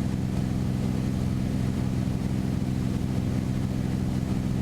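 Steady low drone of a Beechcraft Bonanza's piston engine and propeller in flight, heard from inside the cabin.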